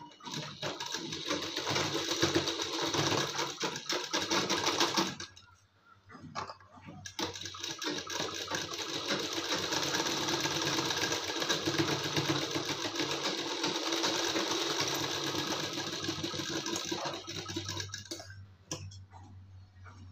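Sewing machine stitching the darts of a blouse panel: it runs for about five seconds, stops briefly, then runs again for about eleven seconds before stopping near the end.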